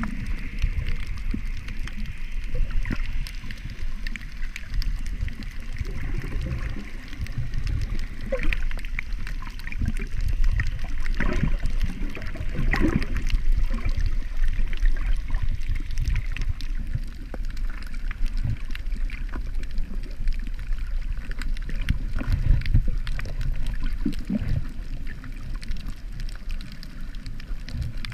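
Muffled underwater sound picked up through an action camera's waterproof housing: a steady low rumble and sloshing of water as the snorkeler swims, with scattered faint clicks.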